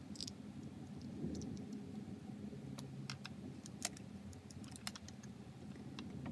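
Scattered light clicks and taps of small plastic model parts being handled, irregular and a dozen or so in all, with the sharpest a little under 4 s and near 5 s in, over a low steady hum.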